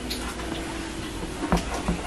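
A few light knocks of a knife on a cutting board as chin chin dough is cut into small pieces.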